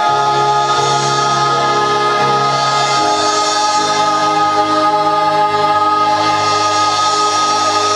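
Stage chorus and accompaniment holding the long closing chord of a musical-theatre number. The lower notes shift to a new chord about three seconds in, and the chord is then held to the end.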